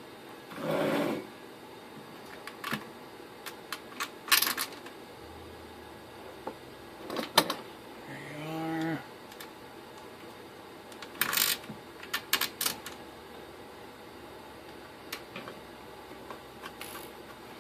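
Scattered small clicks, taps and light metallic clatter of hardware being handled on a workbench, with a short pitched hum about eight and a half seconds in.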